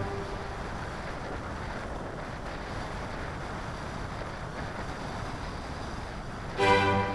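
Steady rush of airflow over the onboard camera's microphone of a Multiplex Cularis model glider in flight, with no motor tone. Background music comes back in near the end.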